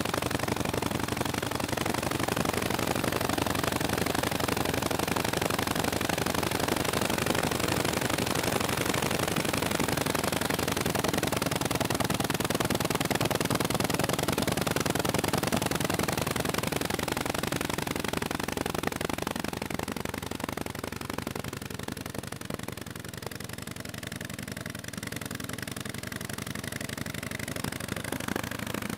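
1915 Harley-Davidson F-head V-twin engine running with a fast, even beat, growing quieter about two-thirds of the way through. The ignition timing is set too far retarded, so the spark fires too late.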